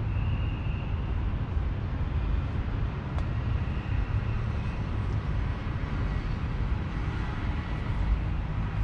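Outdoor urban ambience: a steady low rumble, with a faint click about three seconds in.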